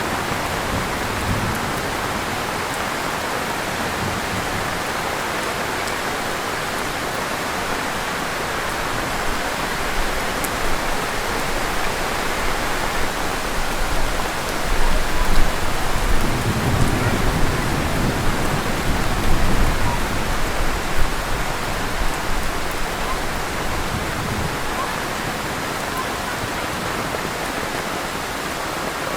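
Heavy rain falling steadily. A low rumble swells for several seconds around the middle.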